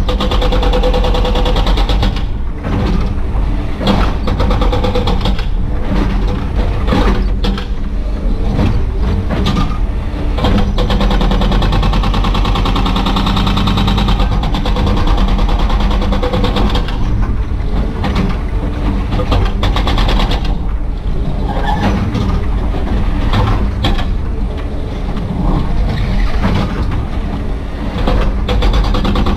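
Excavator-mounted hydraulic breaker hammering on broken concrete, over the excavator's diesel engine running under load, heard from inside the cab.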